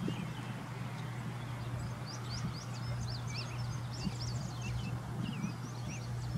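Small birds chirping in quick, repeated calls over a low, steady hum.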